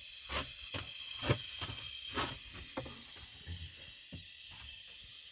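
Irregular light knocks and clicks, several in the first three seconds and fewer after, over a faint steady hiss.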